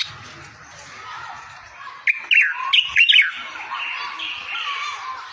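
Songbird singing: a continuous soft warble with a burst of loud, sharp, falling chirps about two seconds in. This is tutor song of the kind played to teach goldfinches and canaries to sing.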